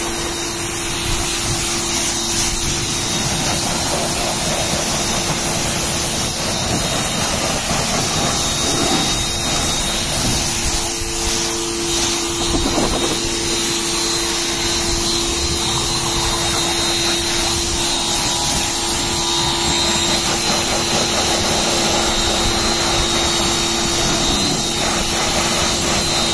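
Ryobi electric pressure washer running steadily, its motor and pump humming under the hiss of a wide 45-degree fan jet of water spraying onto car body panels and a wheel.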